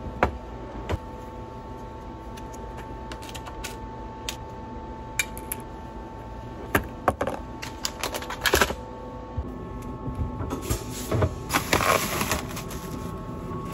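Dental supplies being set out on plastic trays by hand: scattered taps and clicks as a box of gauze sponges, a paper patient bib and small plastic parts are put down. Plastic sleeve crinkling runs from about ten seconds in to near the end, as a tray is covered with a barrier bag. A steady hum in the background stops about two-thirds of the way through.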